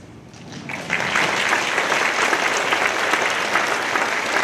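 Audience applauding, breaking out about a second in and then holding steady.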